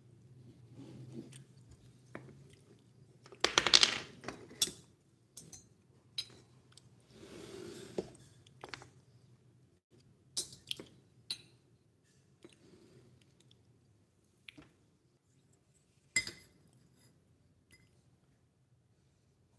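Scattered light knocks and clinks as a small ceramic ramekin of popcorn and miniature wooden furniture are handled and set down, the loudest cluster about four seconds in, with a brief rustle near the middle.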